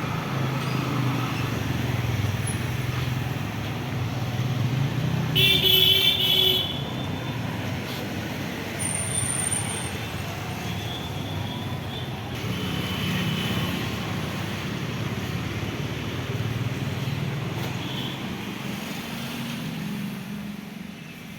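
Road traffic rumbling steadily, with a vehicle horn sounding for about a second and a half around five seconds in.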